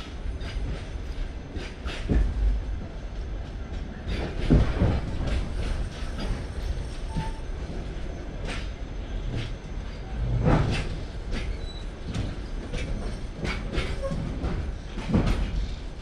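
Railway wheels knocking over rail joints under a steady low rumble, with a few louder knocks spaced irregularly through it. From about halfway, a freight train of flatcars runs past on the next track.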